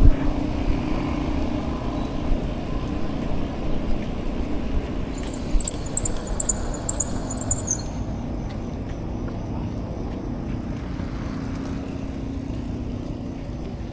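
Road traffic: passing motor vehicles making a steady rumble that eases off somewhat in the second half. A run of high-pitched chirps lasts about two seconds midway.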